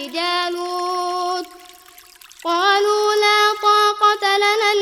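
Quran recitation in a chanted, melodic voice drawing out long, steady notes, with a short break about a second and a half in before the voice comes back. A faint water sound runs underneath.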